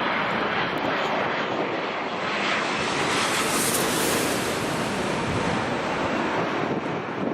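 Jet airliner's engines passing close overhead, the noise swelling to a peak about four seconds in and then fading.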